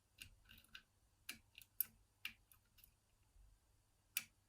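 Faint, irregular metallic clicks of a piano-wire pick lifting the levers of a five-lever mortice lock under tension, with a sharper click near the end.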